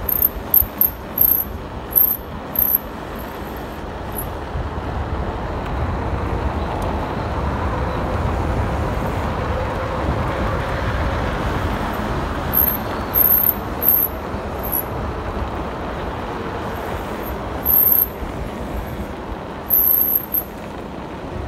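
Wind rushing over the microphone and tyre noise of a mountain bike rolling along an asphalt road, rising to its loudest about halfway through. Clusters of short, loud, very high-pitched squeaks come in several times, near the start and again in the second half.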